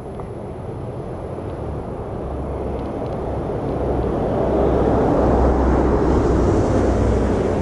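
Road traffic noise from a vehicle on the adjacent road, a rushing rumble that grows louder as it approaches, loudest about five seconds in, then eases slightly.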